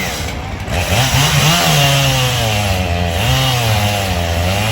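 Echo CS-7310P two-stroke chainsaw with a 24-inch bar, revved in a few quick blips and then held at full throttle cutting a log. Its pitch sags and recovers as the chain bites under load.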